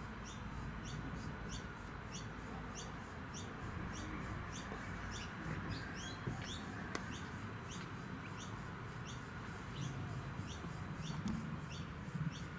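A small bird repeating a short rising chirp, about two a second, over a steady outdoor background hum. A single sharp click sounds about seven seconds in.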